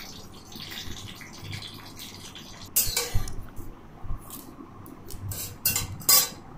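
A plastic spatula stirring a thick semolina-and-curd batter in a plate, knocking and scraping against the plate several times in the second half. The batter has the tempering of curry leaves and mustard seeds on top.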